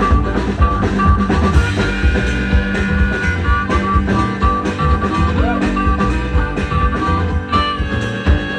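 Live band playing an instrumental passage of a song, with held instrument notes over a steady low beat.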